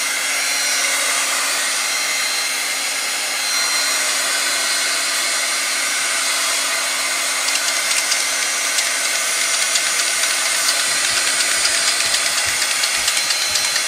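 A hand-held hot-air dryer blowing steadily, drying freshly sprayed alcohol ink. Light irregular clicks come in over the second half.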